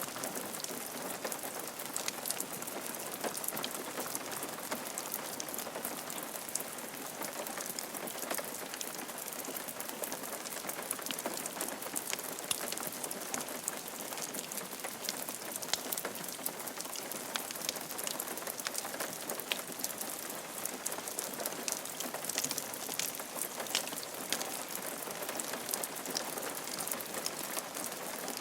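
Steady rain falling on a roof, many individual drops tapping sharply over a continuous hiss.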